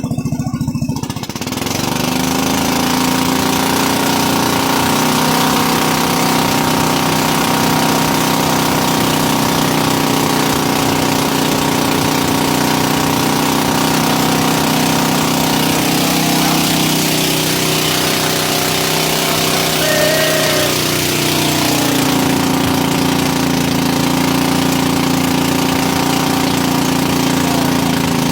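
Motorized fishing boat's engine running steadily at speed with a hiss of wind and water over it; its pitch shifts briefly about two-thirds of the way through, then settles again.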